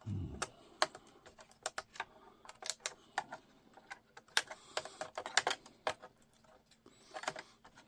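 Irregular light clicks and taps of hard plastic and metal laptop parts being handled and pried apart during disassembly.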